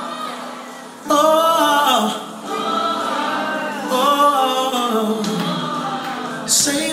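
Gospel song with singing voices and a choir, in sung phrases of a second or two, some notes held and bending in pitch.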